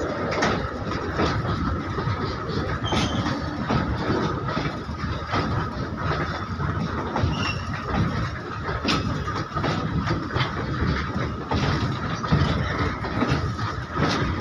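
Loaded coal freight wagons rolling past close by: a continuous rumble of steel wheels, irregular clacks over rail joints, and a steady high tone throughout.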